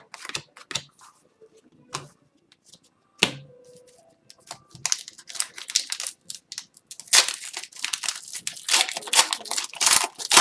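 Trading card pack wrapper being torn open and crinkled while cards are handled, with scattered light clicks and rustles and one sharp knock a little over three seconds in. The tearing and crinkling grow dense and continuous in the second half.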